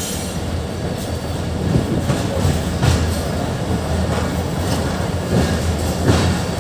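Mehran Express passenger train running along the track, heard from an open carriage door: a steady low rumble with irregular wheel clacks every second or so.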